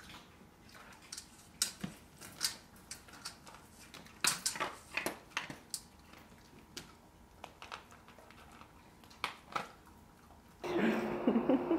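Cat eating dry kibble from a stainless-steel bowl: irregular crunches and clinks of kibble against the metal. Near the end the sound switches suddenly to a louder steady hiss with a low hum.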